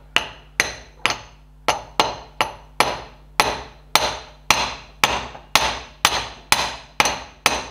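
Wooden mallet striking a metal bearing driver in gentle, even taps, about two a second, each with a short ring. The driver is starting the tapered roller bearing's outer race into a Ferguson TED20 front wheel hub.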